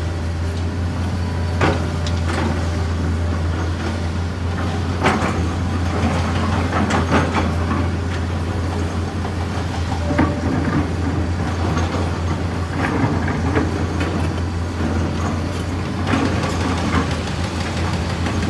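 Excavator diesel engine running with a steady low drone, with scattered knocks and clanks throughout.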